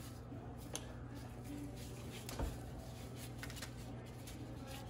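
Faint rustling and small ticks of fresh rosemary leaves being pulled off their stems by hand, with a soft knock about two and a half seconds in, over a steady low hum.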